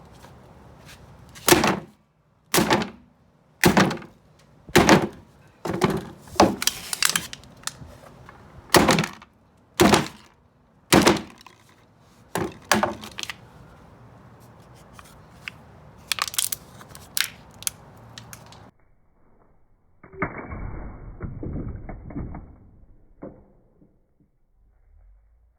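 Hammer blows crushing aluminium soda cans: about a dozen sharp, heavy strikes roughly one a second, followed by lighter clicks and taps.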